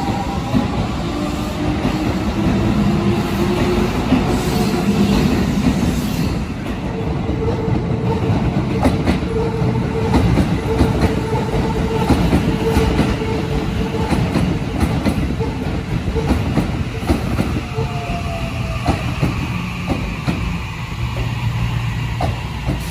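Shin-Keisei Line electric commuter trains running through the station. At first a train's motor whine rises as it gathers speed. Then a steady hum and scattered wheel clacks over the rail joints come from another train as it runs past and away.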